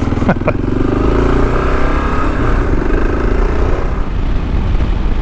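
Kawasaki KLR 650's fuel-injected single-cylinder engine running at road speed, with wind rushing over the microphone. The engine note fades under the wind about four seconds in, and two short clicks sound early on.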